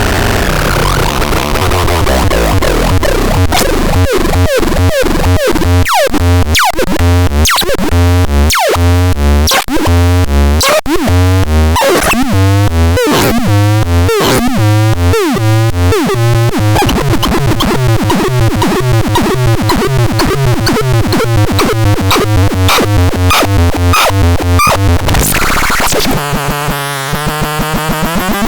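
Electronic synthesizer sounds: a fast string of pulses, each with a falling pitch sweep, over a low throbbing bass pulse. About 26 seconds in, the pattern gives way to a steadier buzzing tone.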